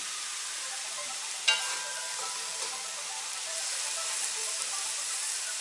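Cubes of pork neck sizzling steadily as they sear in a kazan over a high gas flame. About a second and a half in there is a single sharp clink that rings briefly.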